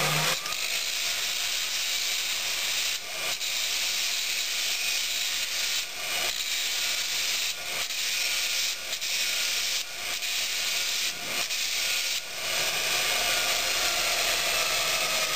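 40-grit abrasive belt on a MULTITOOL belt grinder grinding rust and scale off the top of a steel railway spike: a steady, high grinding hiss, broken by several short dips as the spike comes off the belt.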